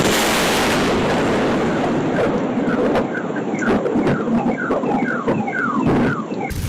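A lightning strike's sudden loud crack, then a dense rumbling roll. From about two seconds in, a car alarm sounds over it in quick repeated falling chirps, set off by the strike.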